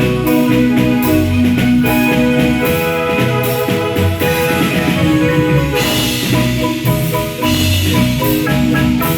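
Marimba ensemble playing a lively tune: rolled mallet notes carry the melody over a marimba bass line, with percussion keeping the beat.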